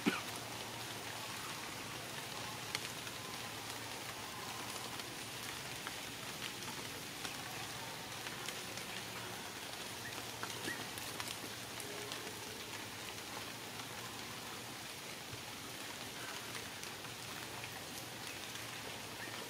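Steady patter of water drops falling in wet forest, with a few sharper single drops scattered through it.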